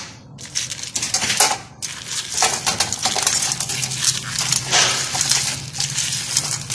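Whole crayfish sliding off a plate into a metal frying pan, their shells clattering against the pan and each other in a run of quick clicks and knocks, with oil starting to sizzle under them.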